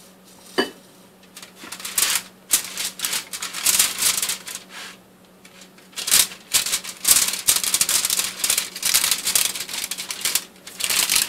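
Aluminium foil on a baking tray crinkling and scratching in irregular bursts as the tray is greased.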